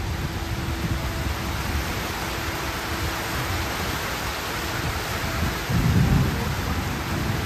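Heavy rain falling steadily with a low rumble underneath, which swells loudest about six seconds in.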